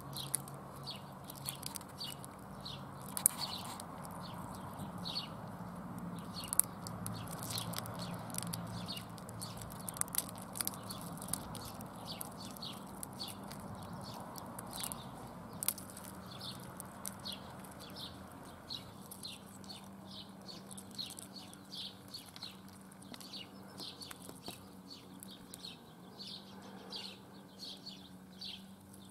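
Small birds chirping in quick, continuous runs of short high notes, with a few sharp clicks and a low steady hum underneath.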